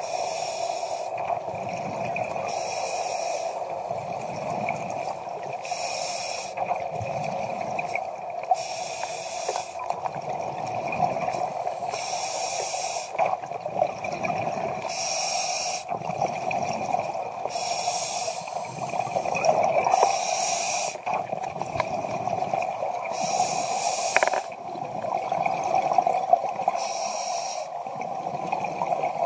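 Scuba diver breathing through a regulator underwater: a hissing inhalation about every three seconds, with bubbling exhalations between, over a steady hum.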